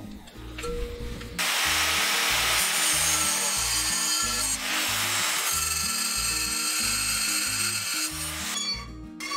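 Angle grinder running against a steel flat bar, a loud steady grinding hiss with a high whine, starting about a second and a half in, easing briefly about halfway, and stopping near the end. Background music with a steady beat runs underneath.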